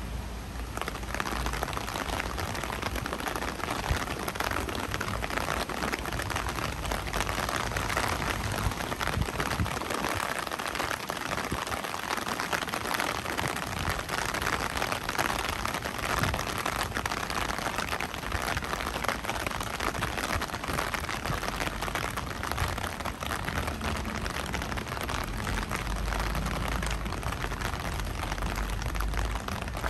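Steady rain falling, a dense, even patter of drops, with a low rumble near the end.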